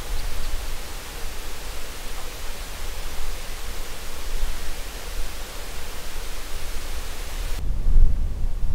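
Wind blowing over open prairie: a steady rushing hiss with low buffeting on the microphone. Near the end the high hiss drops away and the low wind rumble grows heavier.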